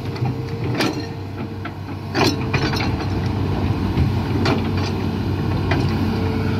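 Hitachi amphibious excavator's diesel engine running steadily as the arm and bucket dig and dump soil, with about half a dozen sharp metallic clanks and knocks from the working machine.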